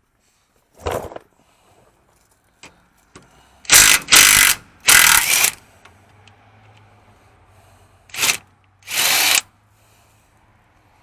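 Low-powered impact wrench on a 15 mm socket, hammering in several short bursts of about half a second with pauses between, working the sway bar bushing bracket bolts loose.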